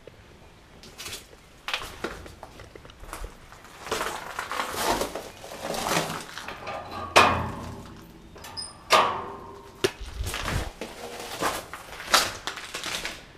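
Footsteps crunching over debris and rubble on a littered floor, with two louder knocks about seven and nine seconds in.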